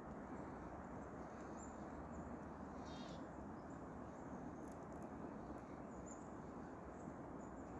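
Quiet winter-forest background hiss with a few faint, high, short bird chirps and a brief rapid clicking about three seconds in.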